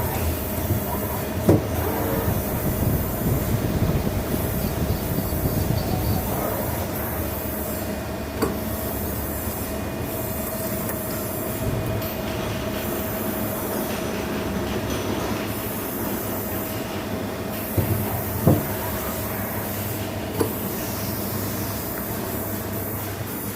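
CNC lathe running: steady machine noise with a constant whine, broken by a few sharp clicks and knocks.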